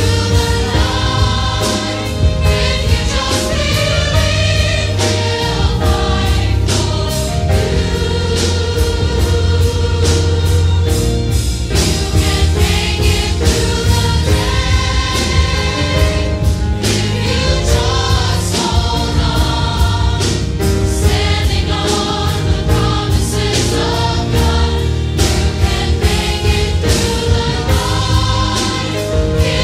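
Gospel choir singing a gospel anthem in full voice, over instrumental accompaniment with a strong bass line and a steady beat.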